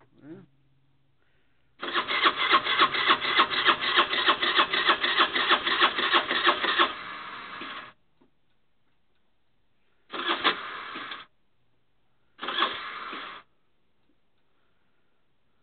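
Tao Tao R 50cc moped's electric starter cranking the cold engine, which does not catch: one long crank of about five seconds with a rapid even pulsing, about five or six beats a second, then two short cranks of about a second each.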